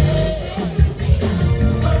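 Music with a heavy, regular bass beat.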